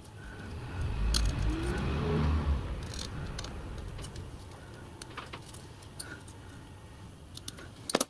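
Sheet of brass wire mesh crinkling as it is handled and cut with scissors, with a few short sharp snips and clicks. A low rumble swells about a second in and fades away by about three seconds in.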